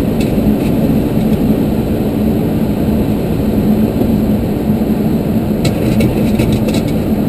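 Steady cockpit noise of a Boeing airliner on final approach: airflow and engine drone with a constant low hum underneath. A handful of light clicks come about two-thirds of the way in.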